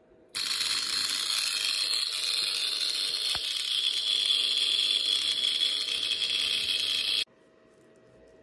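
Chattering relay on the mains buzzing as its contacts rapidly make and break, the source of EFT/burst-type interference. The buzz is loud and mostly high in pitch, starts suddenly about a third of a second in, and cuts off suddenly about seven seconds later.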